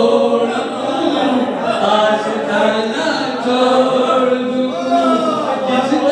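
A man chanting a devotional Urdu verse in praise of the Panjtan into a microphone, with long held, sliding notes.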